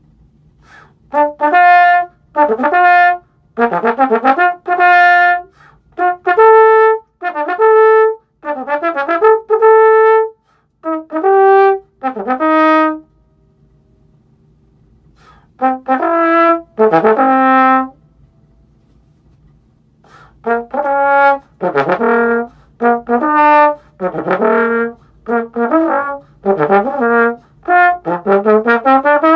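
Unaccompanied tenor trombone playing phrases of separate held notes, broken by two short pauses for breath, with a quick rising run near the end.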